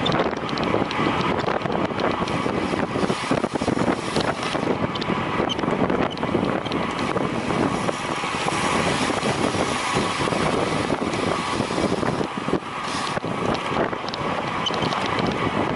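Steady rush of wind over the microphone of a road bicycle moving at racing speed, with a faint steady hum under it.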